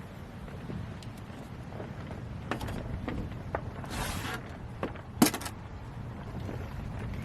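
Wind buffeting the microphone, a steady low rumble, with a few small clicks and knocks scattered through it and a short hiss about four seconds in. The loudest sound is a single sharp click about five seconds in.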